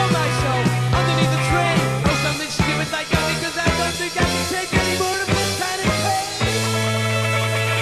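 Rock band playing: a steady drum beat over long held bass notes.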